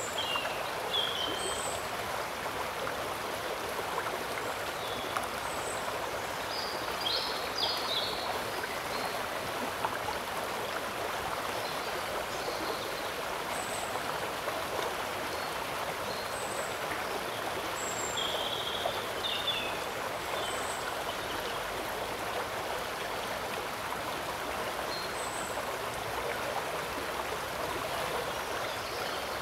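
Steady rush of flowing shallow water, with short high chirps now and then.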